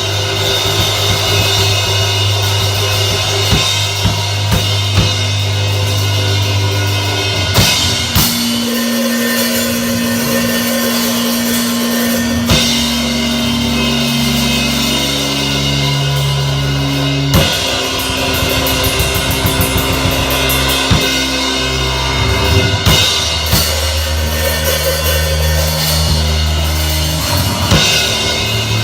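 Band playing an instrumental passage without vocals: a drum kit with bass drum, snare and cymbals keeps a steady beat under sustained low notes that change pitch every couple of seconds.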